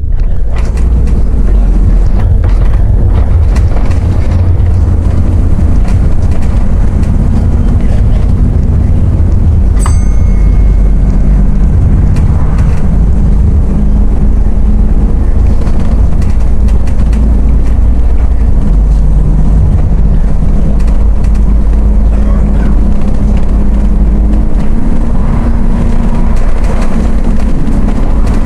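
ADL Enviro 400 double-decker bus heard from inside while under way: a loud, steady low engine and road rumble, the engine note shifting up and down as it drives. A single short metallic ting about ten seconds in.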